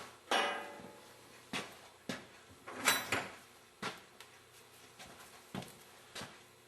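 A metal pick scraping and clicking against a fitting's pipe threads while spreading thread sealant: a string of short separate scrapes and ticks, the loudest about three seconds in.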